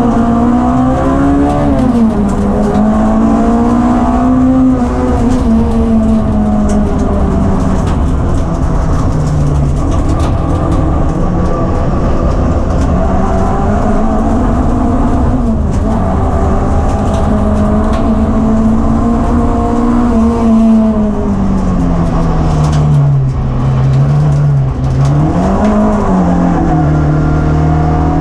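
Classic rallycross car's engine at racing revs, heard from inside the stripped cabin over a heavy constant rumble. Its note holds high and steady for long stretches, sinks lower about three-quarters of the way through, jumps up briefly, then settles lower again.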